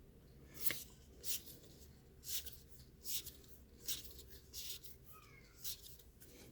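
Baseball cards from a 2020 Bowman Jumbo pack sliding against one another as the stack is flipped through one card at a time: seven or eight short, faint swishes, roughly one a second.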